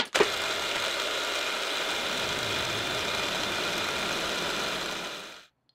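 A 6 mm router round-over bit spinning in a milling machine, cutting a radius along the edge of a 10 mm aluminium piece: a steady cutting noise with a high whine. It starts sharply just after the start and stops about five and a half seconds in.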